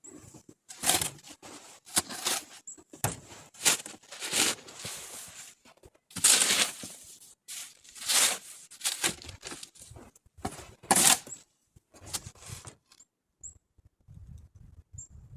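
Footsteps crunching in snow, about one step a second, thinning out near the end, with a few faint short high squeaks.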